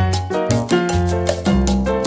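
Background music with a bass line and a regular, quick percussion beat.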